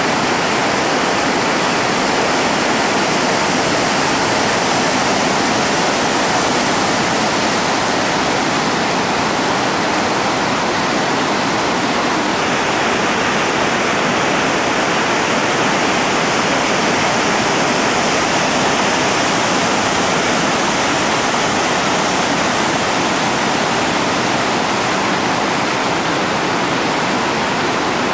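River rapid pouring over a rock ledge: a steady, loud rush of whitewater close to the microphone.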